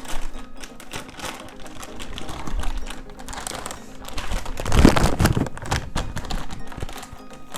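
Small clicks and rustles of a large graphics card and its packaging being handled, with a louder rustle about five seconds in, over background music.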